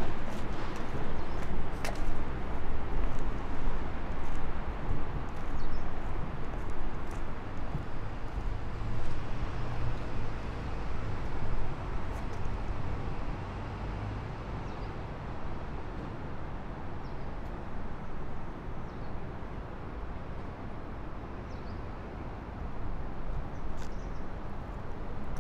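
Open-air ambience on a large cobbled square: a steady low rumble of distant traffic and air, with a few faint bird chirps. It grows quieter about halfway through.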